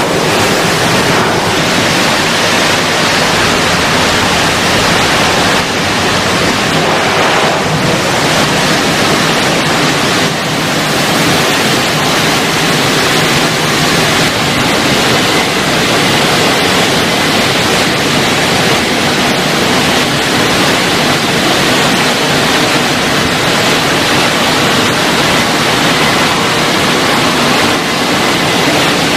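WashTec SoftCare² Pro FlexStream roof dryer blowing air over a wet car in a rollover car wash: a steady, loud rush of air from its blowers.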